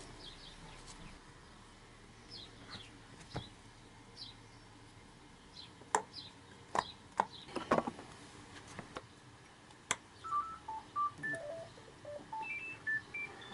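Sharp metallic clicks and taps as a starter motor and its bolts are handled into place on a Yamaha XJ900S engine's aluminium crankcase, loudest about halfway through. From about two-thirds of the way in, a simple electronic beeping tune of short single notes plays faintly underneath.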